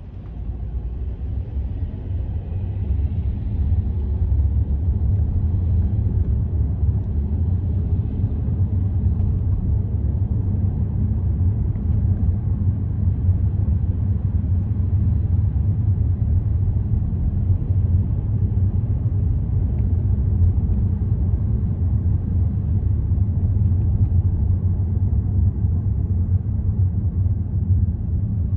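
Steady low rumble of a car driving, engine and road noise, building up over the first few seconds and then holding steady.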